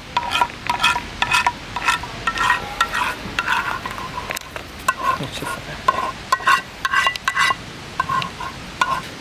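A metal spoon stirring soup in a metal pot, clinking and scraping against it in quick, irregular strokes that ring briefly, over a steady hiss.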